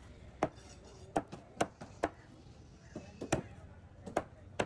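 A heavy knife chopping through diamond trevally flesh and bone onto a wooden chopping block: about ten sharp, irregular chops, some in quick pairs, the loudest a little past the middle.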